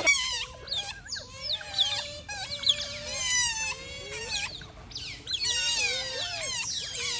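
Otter calling: a quick run of high-pitched chirps and squeaks, each falling in pitch, several a second.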